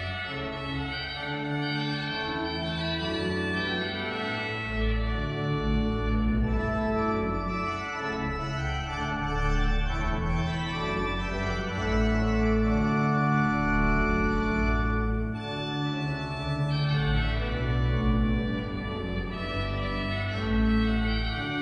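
Organ music: slow, sustained chords that change every second or two over deep held bass notes.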